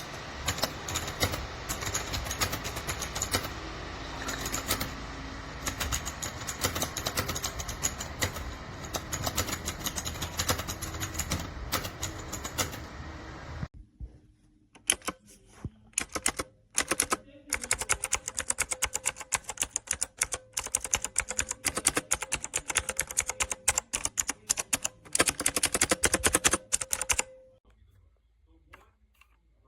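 Mechanical keyboard being typed on: rapid, irregular key clacks. For the first half they sit over a steady background noise that drops away about halfway through, leaving cleaner clicks in quick runs with short pauses.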